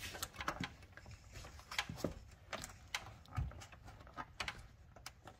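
Hard plastic clicking and scraping as an aftermarket grille's plastic clips are pushed and worked against the front bumper to line them up with its holes. Irregular faint clicks and small knocks, with a soft bump about three and a half seconds in.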